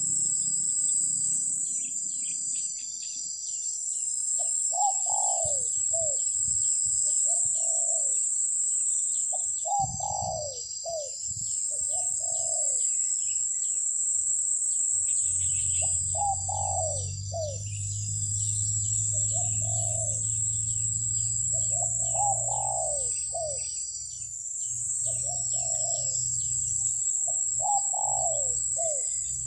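Doves cooing again and again in short groups of two or three low, falling notes. A steady high drone of insects runs behind them.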